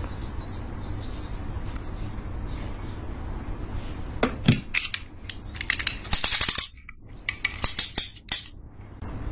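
Handling noise over a steady low hum: a few sharp clicks about four seconds in, then a loud rattling, hissing burst and several shorter loud bursts near the end.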